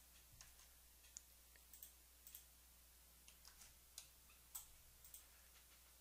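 Faint, scattered clicks of a computer keyboard and mouse in use, at irregular intervals over a low steady hum.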